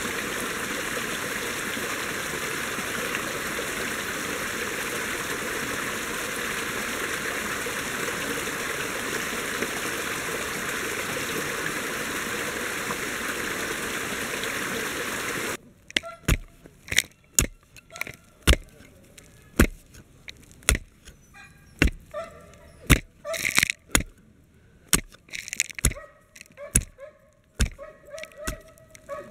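Small woodland stream and waterfall running with a steady rush. About fifteen seconds in it cuts off abruptly to a run of sharp, irregular knocks and clicks, roughly one a second, from hand work in the soil.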